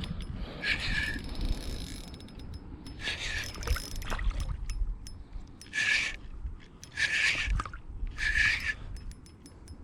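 Fishing reel working during a fight with a fish: six short, buzzing bursts of about half a second each, spaced one to two seconds apart, over a low handling rumble.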